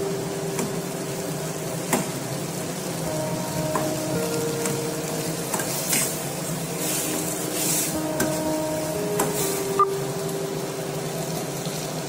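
A steel spoon stirring pumpkin curry in a stainless steel kadai, scraping the pan over a sizzle, with a few sharp clinks of spoon against metal.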